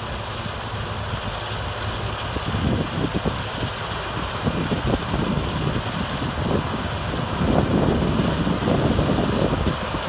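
John Deere combine harvester running as it cuts grain sorghum with its MacDon draper header: a steady machine drone that grows a little louder as the combine comes closer. Wind buffets the microphone in gusts from about two seconds in.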